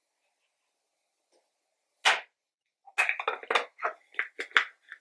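Near silence, then a single knock about two seconds in, followed by a quick run of clicks and clatters as makeup containers and brushes are handled and set down on a table.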